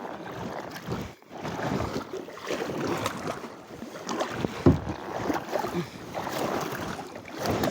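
Irregular rustling and knocking of gear being handled aboard a kayak, with one sharp knock against the hull a little past halfway.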